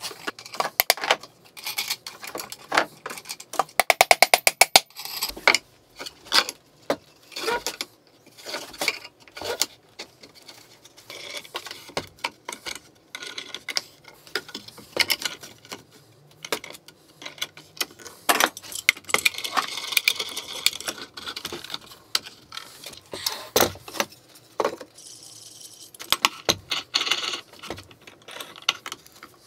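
Workshop handling noises: metal F-clamps and threaded rods clicking, clinking and rattling as clamps are fitted and tightened against a glued plywood board. A fast run of even clicks comes about four seconds in.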